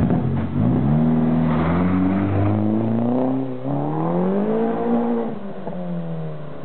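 Tuned turbocharged SEAT Leon accelerating hard from a standstill under over-boost, its engine note climbing through first gear, dropping briefly at the shift into second about three seconds in, then climbing again. Near the end the note falls as it lifts off and fades as the car pulls away.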